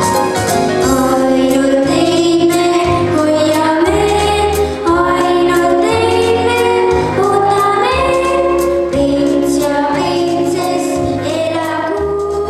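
A girl singing a song through a microphone over instrumental accompaniment with steady bass notes.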